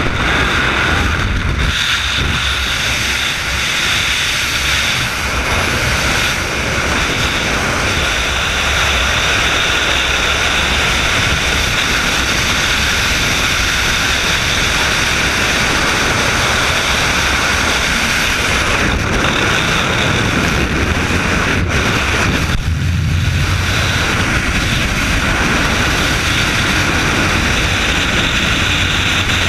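Loud, steady freefall wind rushing over a helmet camera's microphone.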